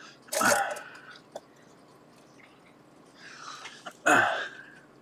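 Two short, breathy bursts of a person's breath or throat noise, one just after the start and a louder one about four seconds in, with a softer breath just before the second.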